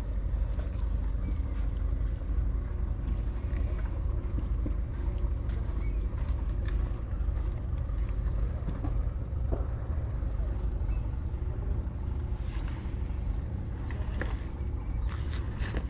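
A steady low engine rumble with faint steady tones in it, and scattered light clicks and taps over it.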